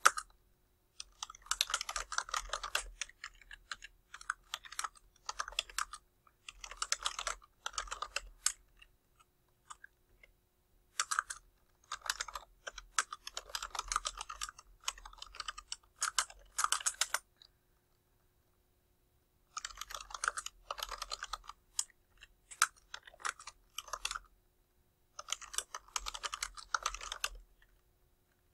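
Typing on a computer keyboard: quick runs of keystrokes with short pauses between them, two of them lasting a couple of seconds.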